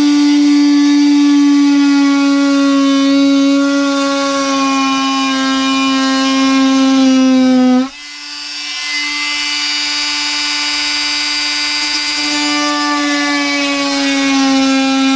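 Oscillating multi-tool cutting out a piece of wooden wall panel: a steady high buzz whose pitch sags slowly as the blade bites. It cuts out suddenly about eight seconds in, then starts again straight away and climbs back up to speed.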